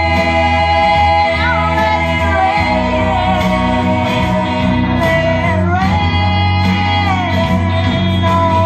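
Three singers, two women and a man, singing a country-style song through microphones and an amplified PA, holding long notes together with slides between pitches, over guitar accompaniment.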